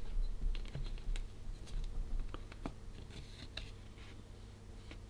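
Light clicks and taps of small plastic parts as the opened electronic thesaurus is handled and pressed, scattered through the first three seconds, then quieter handling.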